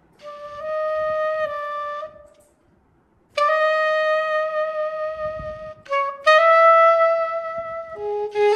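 Sampled soprano saxophone (VHorns virtual instrument, soft soprano preset) played from an EWI USB wind controller: long held notes in three short phrases with brief breaths between them, moving to a lower note near the end.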